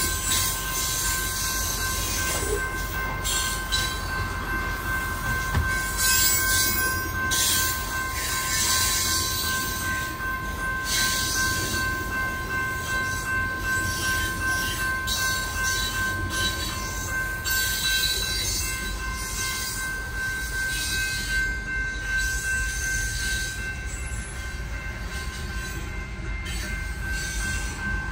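Freight train of empty open-top cars rolling past at a steady pace: a continuous rumble and rattle of cars and wheels, with a steady high-pitched squeal from the wheels held throughout.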